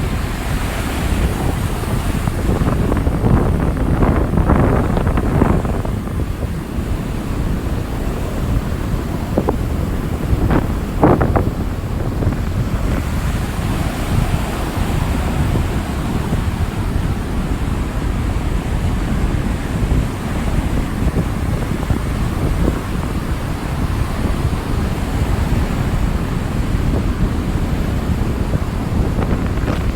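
Rough Atlantic surf, waves breaking and washing in, with heavy wind rumble on the microphone. Brief louder surges stand out about four seconds in and again about eleven seconds in.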